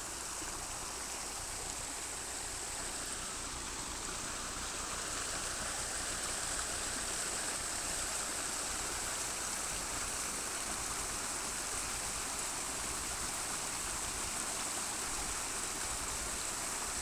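Steady rush of running water from a stream swollen with late spring runoff, a little louder after the first few seconds.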